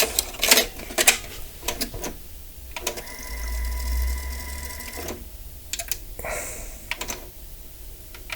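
Arcam Delta 100 cassette deck clicking and whirring through a calibration run on a type II tape. A steady test tone sounds for about two seconds midway, and scattered clicks from the transport and controls fall throughout.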